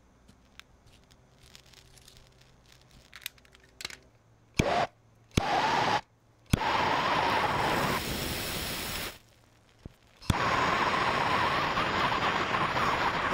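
Propane torch lit with a sharp click and hissing in short bursts about five to nine seconds in, then hissing steadily from about ten seconds in. It is heating firework powder that would not ignite with a lighter.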